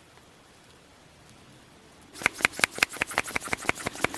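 Spice grinder being twisted by hand, giving a fast, even run of sharp clicks, about eight a second, that starts about halfway in. The grinder is not working: no spice comes out.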